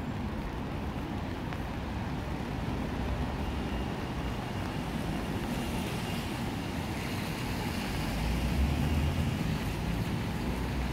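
Road traffic on a wet street: a steady hiss of tyres on the wet road with a low rumble that swells about eight seconds in as a vehicle passes.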